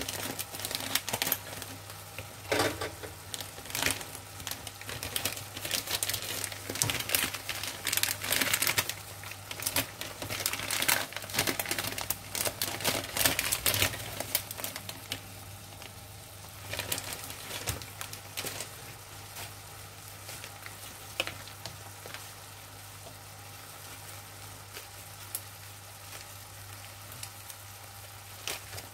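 Plastic noodle packet crinkling as it is handled over a wok of vegetables sizzling in oil. The crinkling stops about halfway through, leaving a quieter steady sizzle with occasional crackles.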